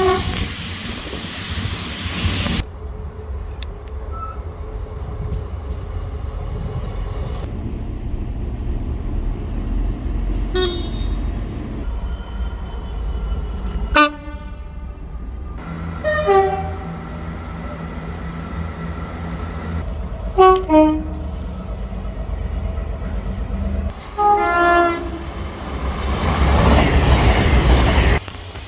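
Trains running past with a low rumble, sounding several short horn blasts across a string of separate clips. Loud rushing noise of a train passing close comes near the start and again near the end.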